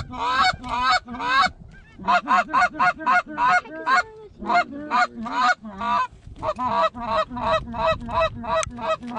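Goose honks in quick succession, about three a second, loud and close, with brief pauses about two seconds in and again near six seconds.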